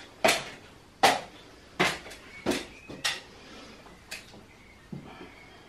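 Feet on a metal stepladder as someone climbs it: about seven sharp knocks, a little under a second apart, the first two loudest, stopping after about five seconds.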